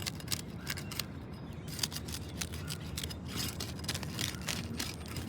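Roof snake working under worn asphalt shingles as they are lifted and pried off their nails: an irregular run of sharp clicks, crackles and scrapes.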